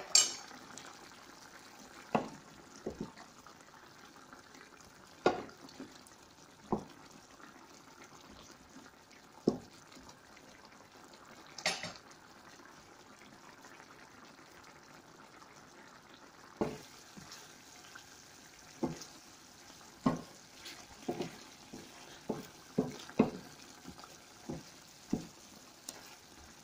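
Chicken curry in coconut milk simmering in a pan, thick bubbles bursting in irregular soft pops every second or few, coming more often in the last ten seconds. A wooden spatula stirs the curry near the end.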